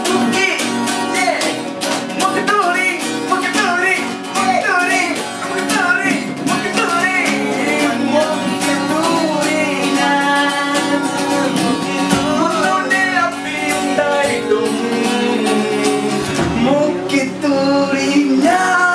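Acoustic guitar strummed while men sing along.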